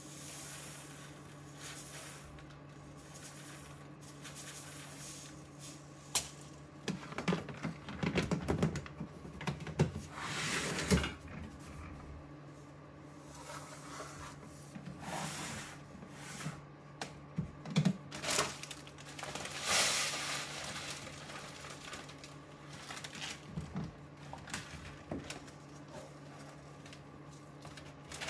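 Irregular rustling and crinkling of a plastic bag, with knocks against plastic tubs and a tray, in clusters of louder handling, over a low steady hum.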